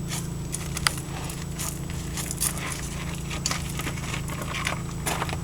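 Irregular crackling and clicking from a 2000 Honda CR-V's differential as the jacked-up front wheel is turned by hand, over a steady low hum. The noise is the fault being chased.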